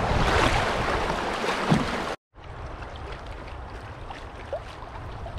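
Canoe on a river: water noise and wind on the microphone, with a few knocks. About two seconds in it cuts off abruptly and gives way to a quieter, even wash of river water.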